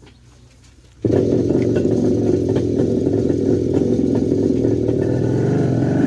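A motor vehicle engine running loudly, cutting in abruptly about a second in and holding steady.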